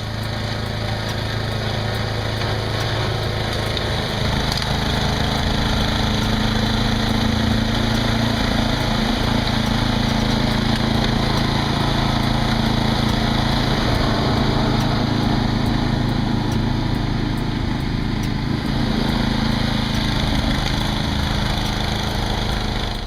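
Old Toro snowblower's small engine running steadily under load as it clears about 15 cm of dry powder snow.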